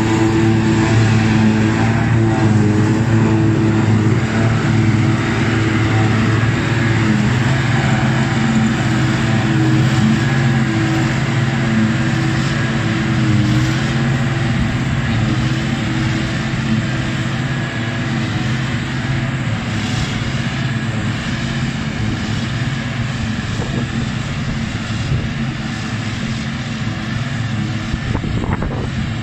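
Claas Jaguar self-propelled forage harvester running under load, its pickup lifting the grass swath and its chopper blowing the grass into a trailer, with a tractor's engine running alongside. A steady, loud engine drone that fades slightly as the machines move away.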